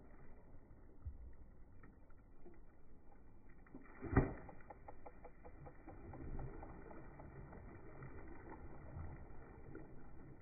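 A hooked mahi-mahi thrashing and splashing at the surface. A single sharp thump comes about four seconds in, followed by a run of quick little splashes.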